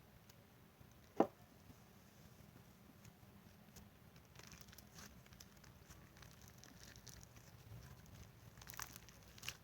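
Faint handling of putty slime: soft sticky squishes and small crackles as it is pulled and folded to work the colour in, with a single sharp click about a second in.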